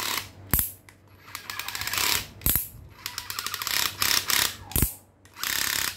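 IKEA cordless drill-driver's clutch slipping under its motor, in several short bursts of rapid ratcheting clicks, with a few sharp single knocks between them. The clutch is set to slip very lightly, at low torque.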